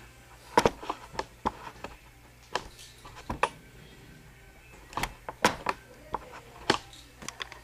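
Irregular sharp clicks and knocks of a camcorder being handled, over a low steady hum.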